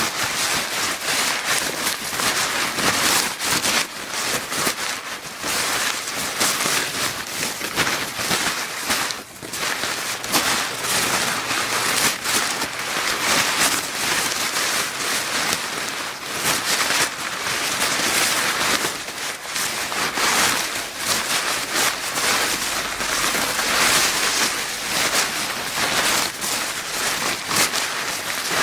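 Paper bag being crinkled continuously, a steady dense crackling with small surges in intensity.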